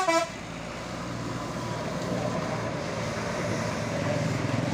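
Tour bus engine running with a steady low rumble that grows slowly louder. It follows the last notes of a basuri melodic horn, which cut off just after the start.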